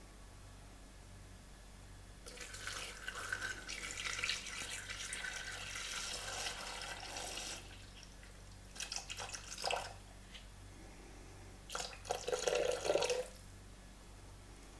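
Water poured from a plastic measuring jug into a Thermomix TM6 mixing bowl: a steady stream for about five seconds, then two shorter pours a few seconds apart.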